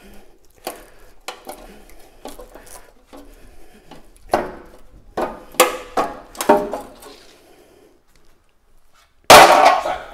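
Scattered light metallic clinks and knocks from hand work on a steel van chassis frame, with a few louder knocks about halfway through. Near the end, a sudden loud burst of clattering noise.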